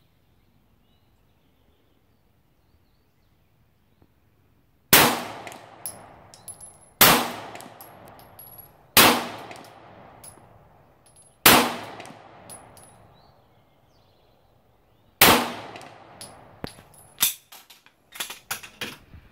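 Five 9mm Glock pistol shots, fired slowly at uneven gaps of about two to four seconds, each trailing off in a fading echo, with light metallic tinks after the shots. Near the end comes a run of small knocks and clatter as the pistol is set down on the shooting bench.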